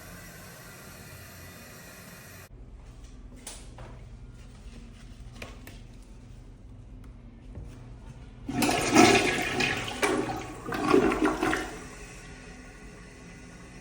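A restroom fixture flushing: a loud rush of water starts about eight and a half seconds in and comes in two surges, dying away about three seconds later, after a few faint clicks.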